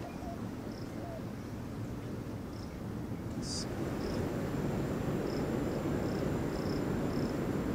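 Outdoor ambience of short, high insect chirps repeating every half second or so over a steady low rushing background that swells slightly midway. A brief high hiss comes about three and a half seconds in, after which a thin, steady high whine carries on.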